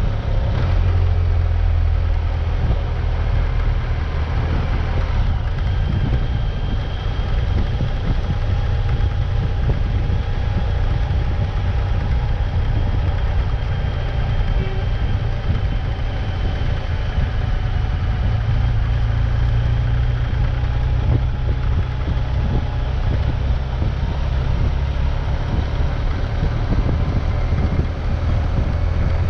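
Vehicle engine running steadily on an off-road ride, its low note shifting slightly now and then, with road and wind noise on the microphone.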